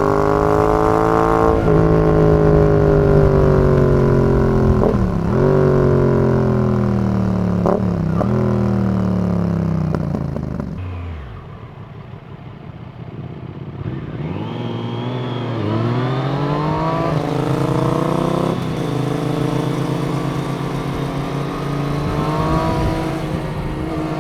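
Yamaha XSR 700's parallel-twin running through a Zard full exhaust. The revs fall off with brief dips as the bike slows and drop to a low, quieter note about halfway through. Then the engine pulls up again with rising pitch, with a gear change and a second climb.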